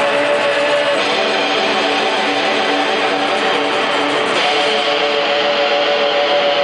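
Amplified twelve-string acoustic guitar strummed in a dense, ringing wash of sustained chords. The chord shifts about a second in and again just past four seconds.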